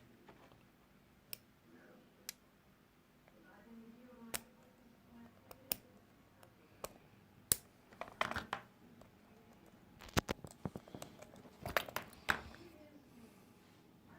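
Light, scattered clicks and taps of tweezers and tiny screws being handled on a work surface while a smartphone is disassembled, with a few quick clusters of clicks in the second half.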